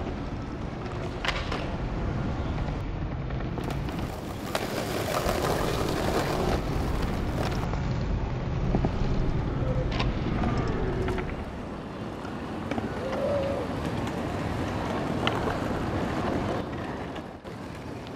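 Outdoor ambience of a busy paved city square: wind buffeting the microphone with a low rumble, faint distant voices and a few sharp clicks.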